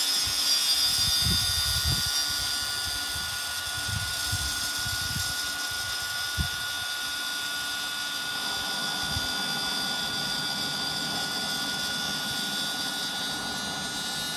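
Looftlighter electric fire starter blowing superheated air onto oak wood to light it: a steady fan whine with a high hiss that holds unchanged. A few low bumps come near the start and one short knock about six seconds in.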